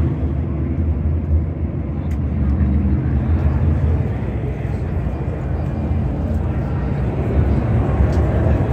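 NASCAR Cup Series stock cars' V8 engines running at race speed, heard as a steady low rumble.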